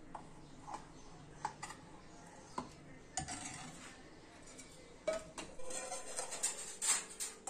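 Steel spoon clinking and scraping against a metal tin and a steel pan while sugar syrup is spooned over fried bread: a few separate clinks, then a busier run of clinks and scrapes in the last couple of seconds.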